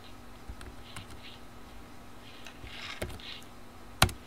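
Computer keyboard keys tapped a few times, as sparse single clicks, with one much louder keystroke near the end.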